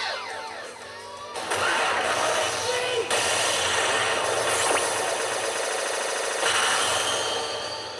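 Pachinko machine (P北斗の拳9闘神) playing its electronic effects: layered whooshing and sweeping tones over a dense wash of sound. It dips briefly about a second in, then comes back loud.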